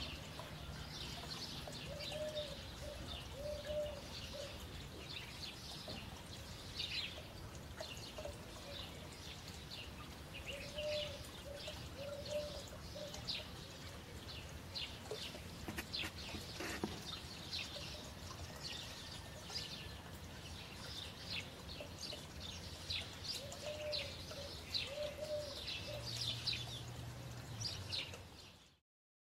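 Birdsong: many small birds chirping in quick short notes, with a low cooing call of a few notes heard three times, over a faint steady hum. It cuts off suddenly near the end.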